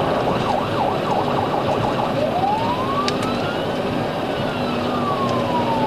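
Police car siren sounding during a high-speed pursuit. It goes quickly up and down at first, then switches to a slow rising and falling wail, over steady road noise.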